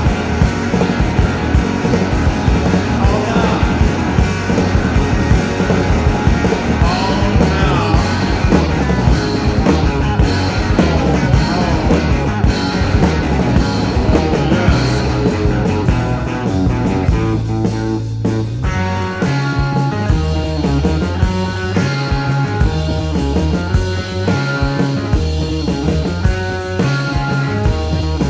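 Rock band playing an instrumental passage with electric guitar, bass and drums. About two-thirds through, the sound thins briefly to a held low bass note, then the band comes back in a choppier, evenly pulsed rhythm.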